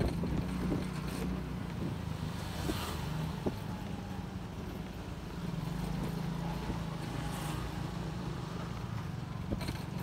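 Small motorcycle engine running steadily at low speed, a low even hum with a few light knocks.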